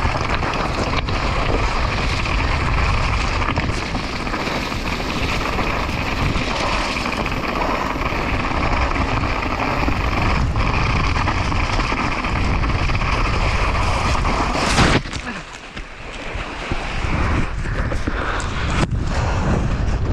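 Wind rushing over a GoPro Hero 9 helmet camera's microphone while a mountain bike rattles downhill over loose rocky ground at speed. About fifteen seconds in comes a sudden loud impact, then the rush drops away to quieter scuffing and clicks: the rider has crashed into the snow.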